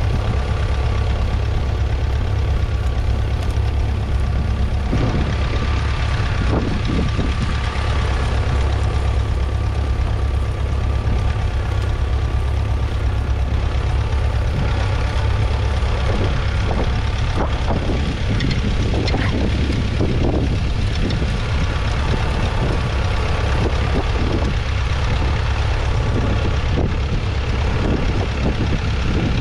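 The 1961 International Harvester B250's 2.4-litre four-cylinder diesel engine running steadily under load as the tractor pulls a two-furrow trailed plough.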